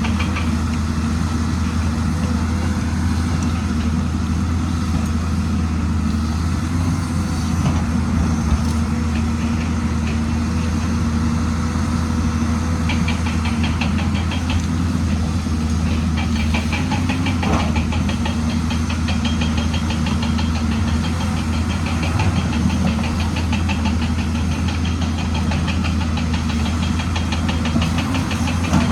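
An excavator's diesel engine running steadily, with a fast light ticking that joins in about halfway through.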